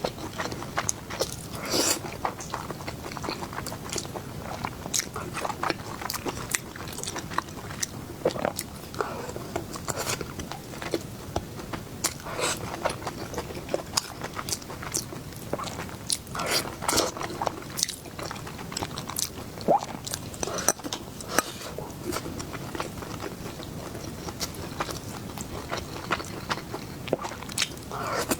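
A person biting into and chewing fried sweet-and-sour food: many short clicks and crunches in irregular clusters.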